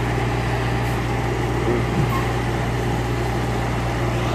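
Scania truck's diesel engine running at idle while the truck creeps along maneuvering: a steady low drone.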